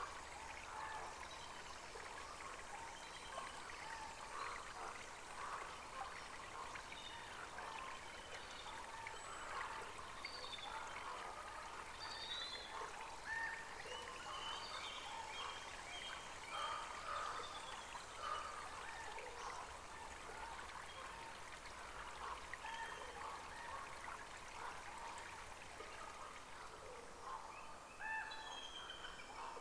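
Faint outdoor ambience of trickling water, scattered with short high bird chirps.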